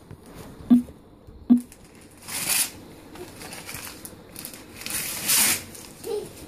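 Christmas wrapping paper being torn and crinkled, in two longer rustling rips about two and five seconds in. Two short sharp sounds stand out louder near the start.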